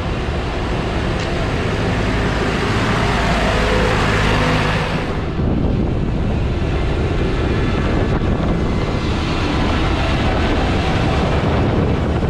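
Small Deutz tractor's diesel engine running steadily while it is driven.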